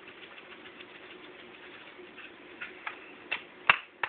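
Seasoning shaker being shaken over a roast: a quick patter of small ticks, then a few sharper clicks and one hard knock near the end.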